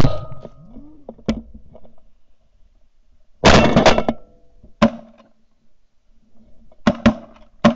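A ragged volley of shotgun blasts from several hunters' guns, about ten shots in all. One is loud at the start, several come in a fast cluster about three and a half seconds in, and more follow near the end.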